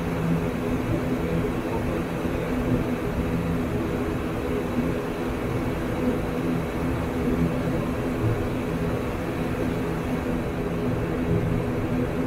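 Steady drone of an ATR 72-600's twin turboprop engines and propellers at low taxi power, heard from inside the cockpit, with a few even tones running under it and no change in pitch or level.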